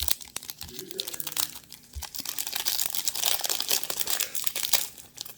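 Cellophane wrapping of trading-card packs crinkling as it is handled, a dense run of quick crackles that grows louder in the second half.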